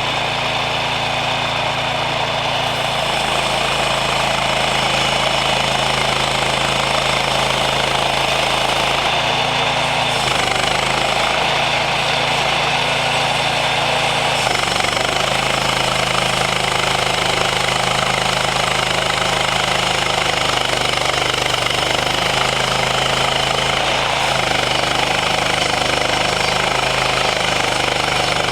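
Woodland Mills portable bandsaw mill running under load, its gas engine working as the band blade cuts through an oak log with a loud steady hiss. The engine note sags and recovers briefly three times.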